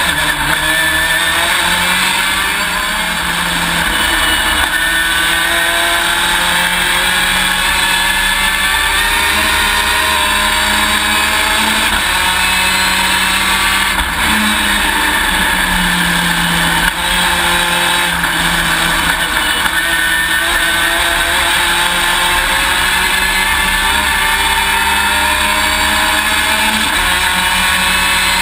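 Race car engine heard from inside the cockpit at racing speed, its note climbing and dropping again and again through the laps. Wind and drivetrain noise run underneath.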